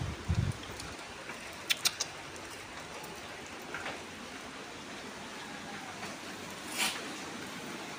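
A steady hiss of background noise, with a couple of low thumps at the very start and a quick run of sharp clicks about two seconds in. A short swell of hiss comes near the end.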